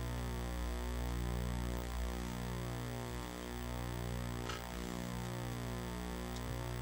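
Quiet, soft sustained keyboard chords, low and steady, shifting every couple of seconds, with a small click about four and a half seconds in.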